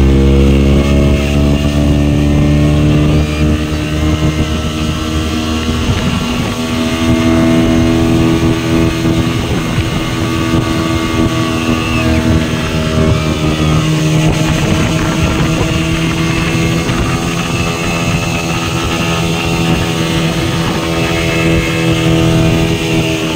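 Engine of a speedboat towing a donut boat, running steadily at speed, with the wake's water rushing and churning.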